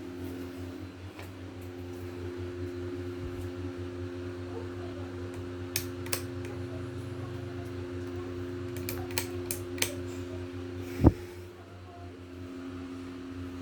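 Ceiling fans running on low speed with a steady motor hum, broken by a few sharp clicks and one louder knock about eleven seconds in.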